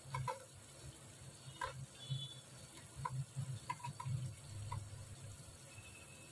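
Knife cutting fried paneer on a stainless-steel plate: a few scattered light clicks and taps of the blade against the metal, over a faint low hum.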